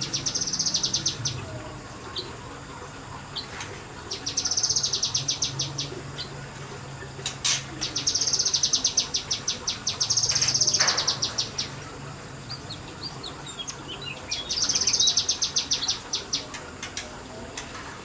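A kinoi leafbird singing in rapid bursts: five runs of fast, evenly repeated high notes, each lasting one to two seconds, with a few short chirps between them.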